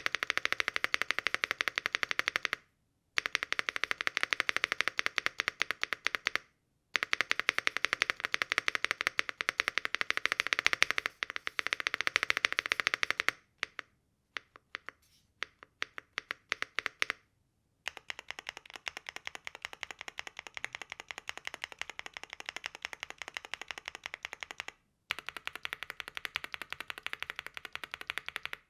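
Rainy75 aluminium mechanical keyboard typed on quickly with stock switches: dense runs of keystroke clacks with brief pauses. In the middle comes a stretch of slow single keystrokes, and near the end the typing is quieter and more even. After a short break about three seconds in, the sample changes from JWK Snow Ink switches to Kailh Cocoa switches.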